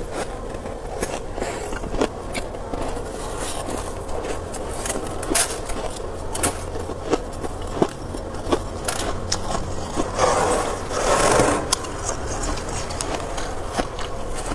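Metal spoon scraping thick built-up frost off freezer shelves, with many sharp crunching clicks and a longer, heavier scrape about ten seconds in.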